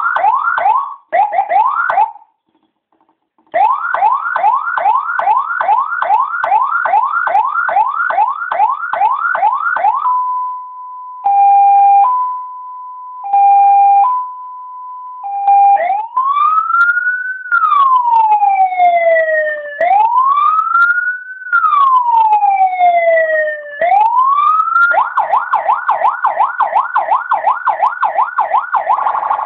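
Senken TBD022122 police lightbar's built-in electronic siren cycling through its tones. It starts with a fast yelp of about three rising sweeps a second, cut by a short pause near the start. About ten seconds in it switches to a steady high-low two-tone, then to a slow wail that rises and falls every few seconds, and near the end it returns to the fast yelp.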